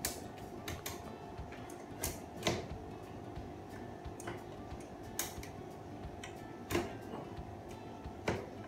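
Tubular leg of a TableMate folding table being pressed and worked into its plastic socket under the tabletop: sharp clicks and knocks every second or two, about six loud ones, over a faint steady background tone.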